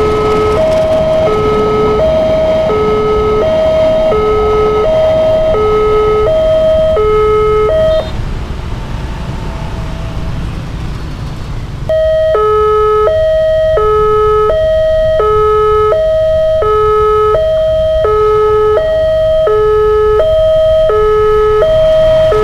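Railway level crossing's electronic warning alarm sounding its alternating high-low two-tone chime, about one cycle every second and a half. The alarm breaks off for about four seconds partway through, leaving duller noise, then resumes.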